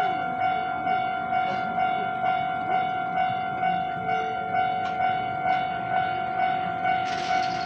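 Railway level crossing warning bell ringing steadily, a little over two strikes a second. A brief hiss comes in about seven seconds in.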